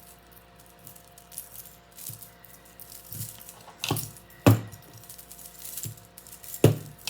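Costume jewelry being handled: small clinks and rattles of metal and beads, with three sharp knocks of pieces set down on a table, the last two the loudest.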